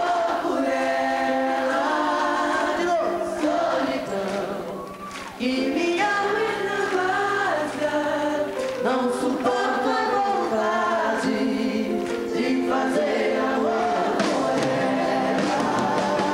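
A sertanejo duo singing a ballad live with band accompaniment, the two male voices over sustained chords, with a brief softer passage about four to five seconds in.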